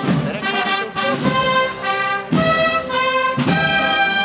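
Brass band playing a Holy Week processional march: held brass chords that change about once a second, with low thuds at the changes.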